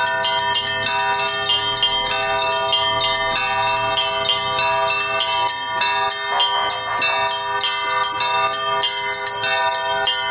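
Russian Orthodox church-bell ringing (zvon): a row of small church bells on a wooden frame, struck by rope-pulled clappers, ringing out rapidly at several strikes a second over a continuous wash of overlapping bell tones.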